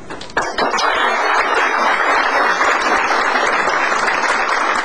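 Audience applauding: a dense, steady round of clapping that breaks out suddenly about half a second in, right after a speech ends.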